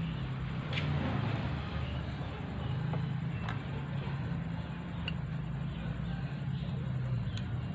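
A few light metallic clicks of a hex key working the bolts on a vacuum pump's pump-head cover during disassembly, with the pump switched off. Under them runs a steady low background hum.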